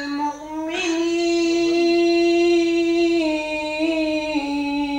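A man chanting a Quranic verse in melodic recitation. After a brief pause he holds one long drawn-out note that steps down in pitch twice.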